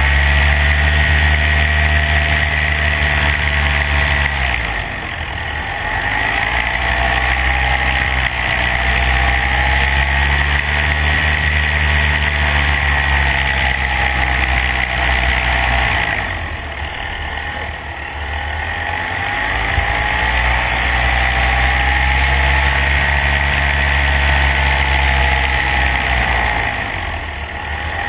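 Vehicle engine running steadily. Its pitch and loudness ease down and climb back three times: about five seconds in, around seventeen to nineteen seconds, and near the end. A steady high whine runs over it.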